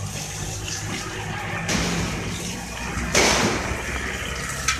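Plastic bag in a metal feeding bowl crinkling as a wolf noses into it, in two bursts, the louder about three seconds in, over a low steady hum.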